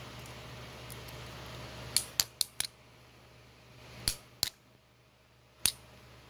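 Small, sharp metal clicks and taps from handling the pins and springs of a disassembled Medeco lock core: four quick clicks about two seconds in, two more around four seconds, and one near the end.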